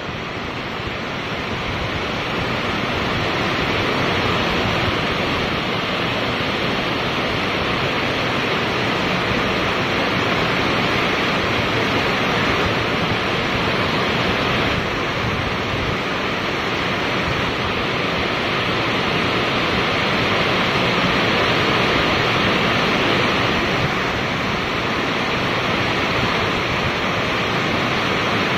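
Steady rain falling, a dense even hiss that swells slightly over the first few seconds.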